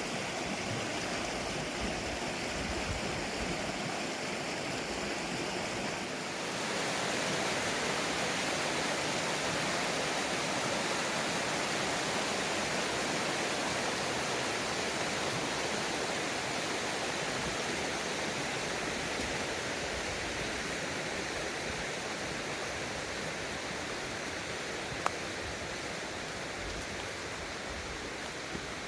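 Mountain stream water rushing steadily over rocks; the rush shifts and grows a little louder about six seconds in. A single sharp click sounds near the end.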